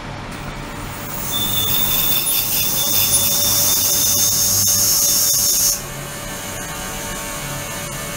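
Ultrasonic tank running, its transducers churning the water: a steady electrical hum, joined about a second in by a loud, high hiss and whine that stops suddenly just before six seconds.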